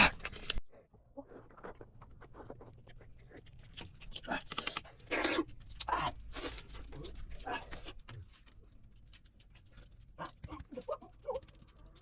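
Short, scattered animal sounds, with a few brief pitched calls near the end.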